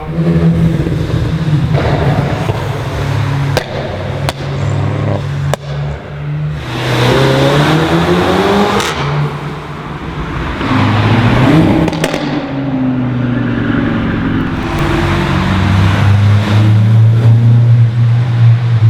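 Performance car engines revving and accelerating, pitch climbing through the gears, with several sharp exhaust pops about three to six seconds in and again around twelve seconds in, and a low steady engine drone near the end.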